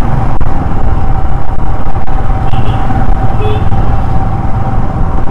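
Royal Enfield Himalayan motorcycle running on the move, with heavy wind rumble on the microphone and a steady high hum. A couple of brief high beeps midway.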